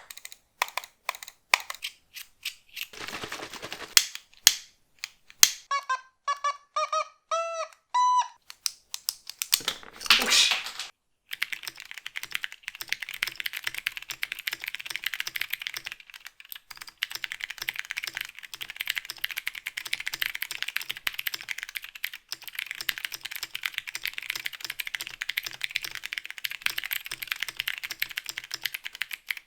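Typing on a homemade keyboard with a cardboard case and cardboard plate, fitted with Cherry MX Brown and Gateron Blue switches. Separate clicks, a short burst of pitched tones and a hiss come first. From about eleven seconds in, fast continuous key clatter runs on.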